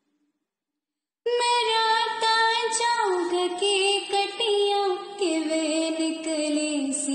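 About a second of silence, then a young woman's voice comes in abruptly, singing a wordless melody with pitch slides and ornaments, with music behind it.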